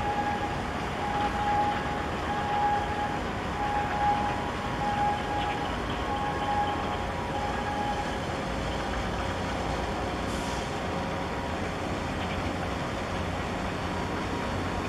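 Large container ship running past close by: a steady low rumble under an even wash of noise. A faint beep repeats about once a second through the first half and then stops.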